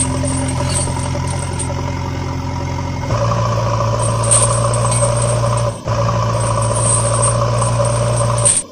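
Engine sound effect of a vehicle idling steadily, laid over the toy scene. It switches abruptly to a slightly different hum about three seconds in and drops out for a moment about two-thirds of the way through.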